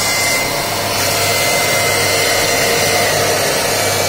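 Mini servo turning machine running, its belt-driven spindle spinning a motor armature: a steady, even whirring hiss with a low hum underneath and a faint thin whine.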